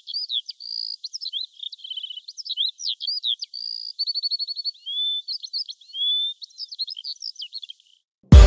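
A songbird singing a rapid, varied run of high chirps, trills and short whistles. It cuts off just before loud electronic music with a heavy beat comes in at the very end.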